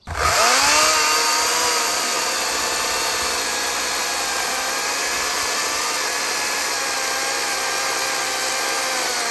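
Battery-powered brushless chainsaw (NovorikX 60V) running at full throttle: a high electric whine that starts abruptly, spins up in pitch over the first moment, then holds steady.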